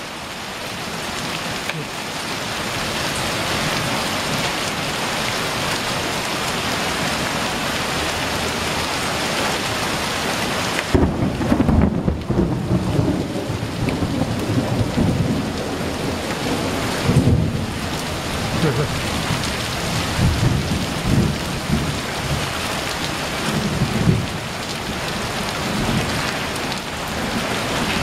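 Heavy rain pouring steadily onto the alley pavement and roofs. A little over a third of the way in, thunder breaks out in a long, low rumble that swells louder several times.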